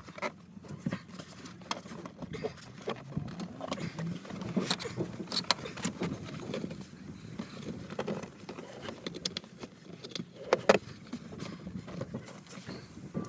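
Irregular light clicks, taps and knocks of hand work on car interior parts, some louder knocks about five and ten seconds in.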